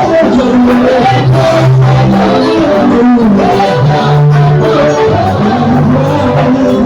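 Loud band music with a bass line that moves between held notes, under busier melody lines.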